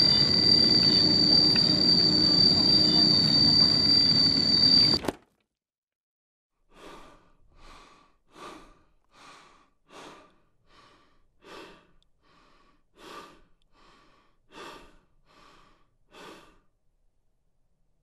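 A loud, steady high-pitched drone cuts off suddenly about five seconds in. After a pause, a young woman gives about a dozen short, strained gasps for breath, one every second or so, as she is being choked by hands at her throat.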